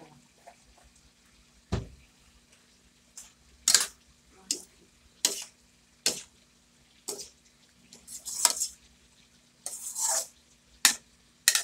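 Metal spatula clanking and scraping against a steel wok as vegetables are stir-fried, about a dozen irregular strokes: a dull knock about two seconds in, then sharp metal-on-metal scrapes, two of them longer near the end.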